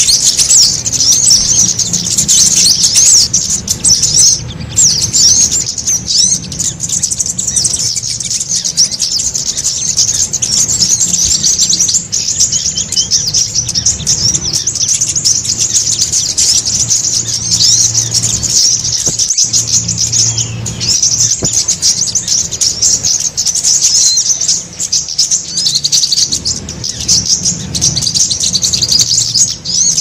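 A dense, unbroken chorus of many small songbirds chirping and twittering rapidly, high-pitched. It is a mixed bird-lure (pikat) call recording built around small forest birds such as sunbirds (sogok ontong), played to draw wild birds in.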